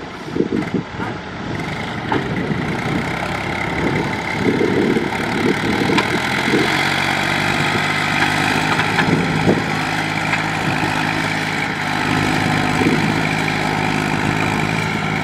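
Diesel tractor engine working under load as it pulls a trailer stacked with rice sacks through deep mud, running steadily, with irregular knocks and thumps in the first half.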